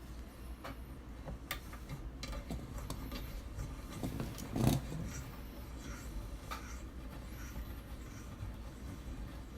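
Light clicks and scraping of brass cartridge cases being handled and worked on a Lyman case trimmer, with one louder knock about four and a half seconds in.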